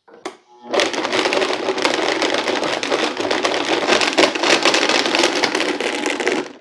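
Vitamix blender running with chunks of gummy Swedish Fish candy in liquid, a loud rattling whir that starts about a second in and cuts off sharply at the end. The chewy candy is hardly being broken down. A few light knocks come first as the container is set on the base.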